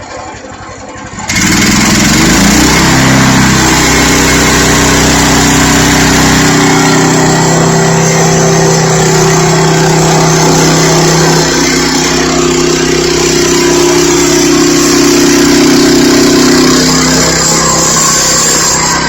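Hud-son band sawmill's gas engine throttling up about a second in, then running steadily under load as the band blade saws lengthwise through an ash log, skimming a slab off its side; the engine eases back near the end.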